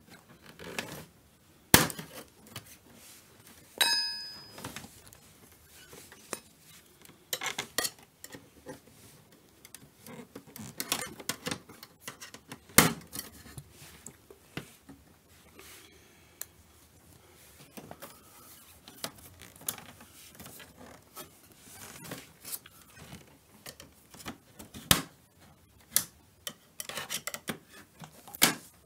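A knife prying apart the plastic retaining tabs of an LED TV's backlight frame: irregular sharp plastic clicks and snaps, the loudest about 2, 13 and 25 seconds in. A short ringing clink comes about 4 seconds in.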